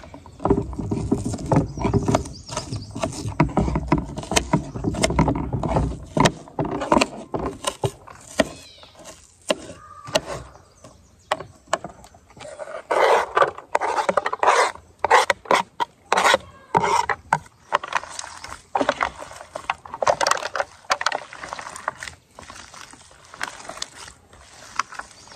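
Kitchen knife chopping onion on a plastic cutting board, a long run of sharp irregular taps. Partway through, the knife scrapes the chopped onion across the board into a foil pan.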